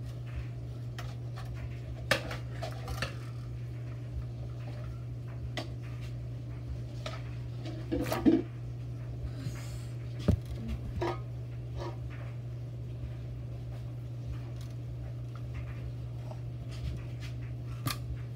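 Metal tongs clicking and knocking against a hard surface as a towel is pushed over a spill, the loudest knocks about eight and ten seconds in. A steady low hum runs underneath.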